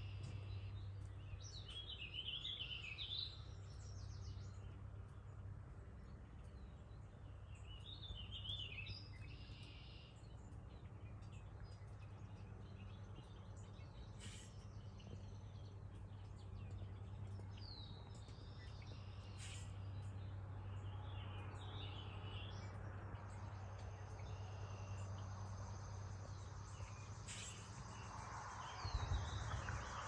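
Songbirds in the background singing short chirping, warbling phrases every few seconds over a steady low hum, with a few sharp single clicks and a brief low rumble near the end.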